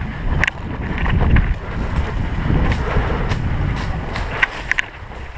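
Low wind and handling rumble on a GoPro action camera's microphone, with about six short, sharp clicks or snaps scattered through it.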